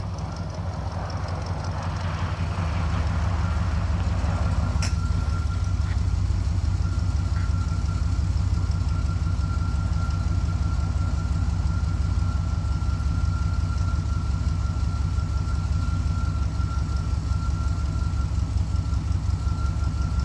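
1986 Chevrolet Blazer's V8 engine idling with a steady low rumble, growing louder over the first few seconds. A click about five seconds in is followed by a thin, steady high tone over the engine.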